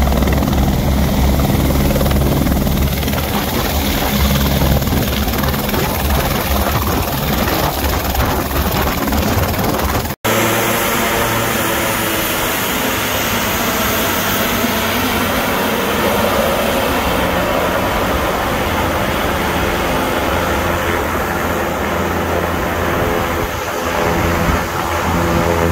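A helicopter's rotor and turbine running as it hovers just off the helipad, with a heavy low rumble. About ten seconds in there is an abrupt cut to a twin-engine turboprop airplane's engines running steadily, a hum of several steady tones.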